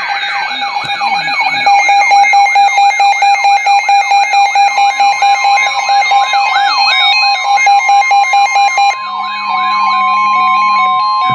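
Electronic alert tones: a fast repeating rising-and-falling sweep, about three a second, over a steady tone. About five seconds in, a steady higher alarm tone joins, typical of NOAA Weather Radio's 1050 Hz warning alarm tone. It carries on alone with stepping electronic notes after the sweeps stop, about nine seconds in.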